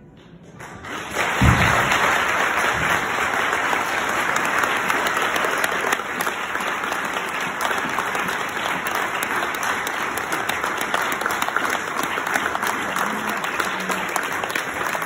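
A roomful of people applauding. The clapping swells up within the first second and then keeps going steadily, with one low thump about a second and a half in.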